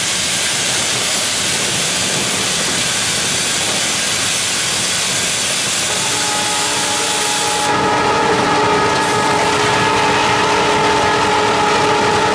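WDM3A diesel locomotive running at speed, heard from its cab: a steady, loud rush of wind and running noise. About six seconds in, a steady whine with several tones joins, and a little later the high hiss drops away.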